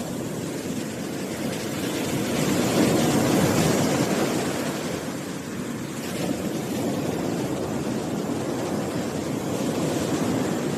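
Strong sea waves breaking on a beach: a steady wash of surf that swells louder about two to four seconds in and again near the end.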